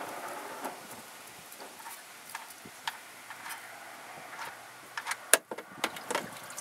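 Oil-pan drain plug being turned out by hand, giving small metallic clicks and ticks, with a sharp click about five seconds in as the plug comes free and the oil starts to drain.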